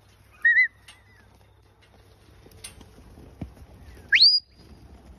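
Two whistled commands to a working sheepdog. The first, about half a second in, is a short warbling whistle. The second, near the end, is a sharp rising whistle that holds its top note briefly.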